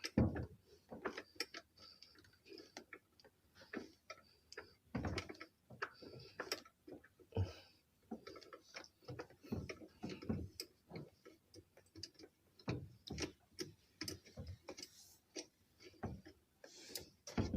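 Open-end wrench working a 10 mm bolt loose, with irregular metal clicks and knocks as the wrench is reset and turned.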